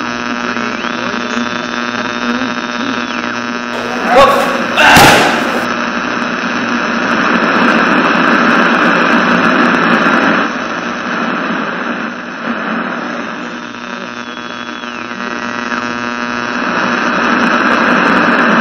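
A loud, steady droning hum of many held tones over a rushing noise. Two sudden loud swells break through about four and five seconds in.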